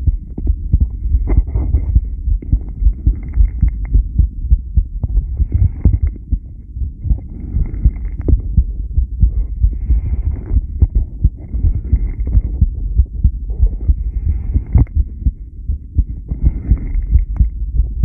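Human heartbeat recorded at the chest, a continuous run of low thumping beats. A hiss swells and fades about every two seconds over the beats, fitting the subject's breathing during rebreathing.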